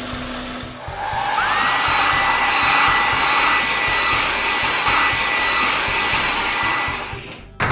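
Cartoon car-wash machine sound effect: a rushing, blower-like hiss with a motor whine that rises and then holds steady. It starts about a second in and cuts off sharply near the end.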